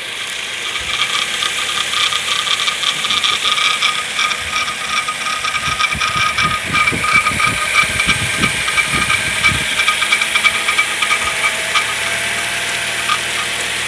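A Suzuki car engine running with a fast, continuous metallic rattle from the engine bay, heard close up under the bonnet; its cause has not been found even with the engine taken apart. A run of low thumps falls in the middle.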